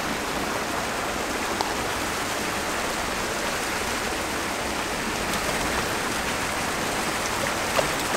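Steady rushing and splashing of water jets spraying into a fish pond.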